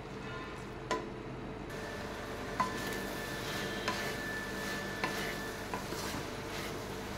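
Wooden spatula stirring okra and onion in a metal kadai as they fry gently on a low flame, with a soft steady sizzle. The spatula knocks sharply against the pan about five times.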